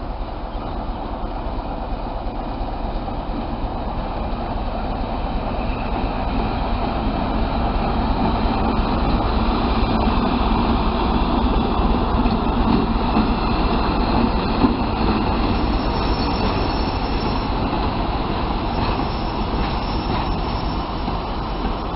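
ChME3 diesel shunting locomotive and its train of wagons passing: steady engine running and wheel rumble on the rails, swelling toward the middle and easing off again. There is one sharp knock about two-thirds of the way through.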